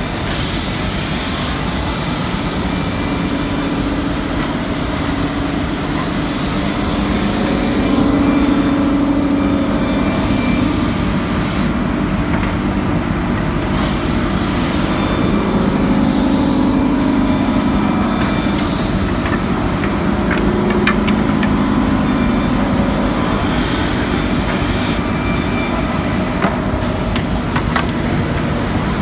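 STA-1000DS surface brush polishing machine running: its rotating brush heads and feed conveyor make a loud, steady mechanical hum that swells now and then as wooden boards pass through. A few sharp clicks come near the end.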